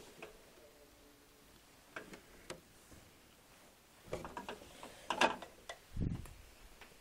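Scattered clicks and knocks: a few early on, a busy cluster about four to five and a half seconds in, then a low thump about six seconds in.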